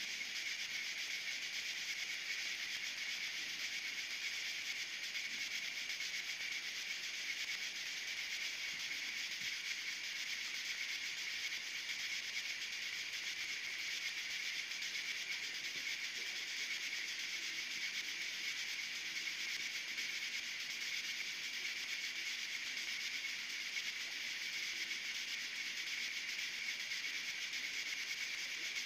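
Steady high-pitched hiss that holds unchanged throughout, with no distinct events.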